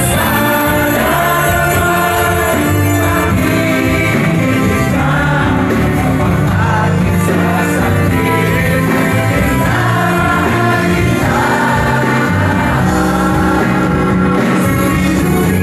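Live concert music with a band and singing, recorded from the audience on a phone. Many voices sing along with the lead, and the level stays loud and steady throughout.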